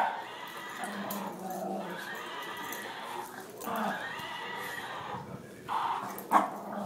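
Bullmastiff puppy and shih tzu play-fighting: two long, drawn-out whining growls, the first about three seconds, the second shorter, then a short sharp yip near the end.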